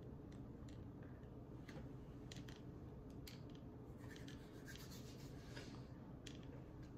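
Faint, scattered crinkles of a cellophane snack cake wrapper being handled, over a low steady room hum.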